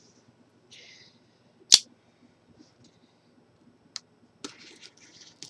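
Handling of a cardboard shipping box: one sharp knock a little under two seconds in, a few clicks, and short scrapes and rustles.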